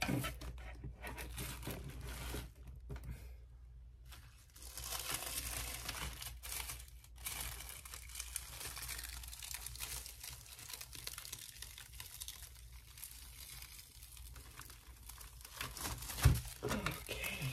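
A sheet of paper being peeled slowly off a paint-coated gel printing plate, crinkling and crackling as it lifts away from the tacky paint, with a short thump near the end.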